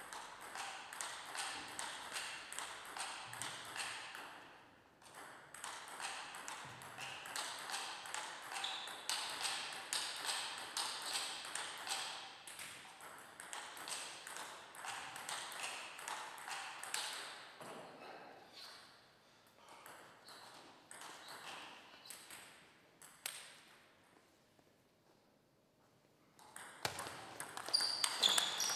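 Table tennis balls knocking on table and bats in a long run of quick, light clicks that thin out and stop for a few seconds of near silence. Near the end a rally starts with louder, sharper hits.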